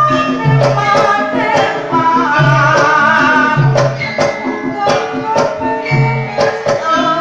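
Javanese gamelan music for a langen beksan dance: deep hand-drum strokes in a steady rhythm under ringing pitched percussion and a singing voice.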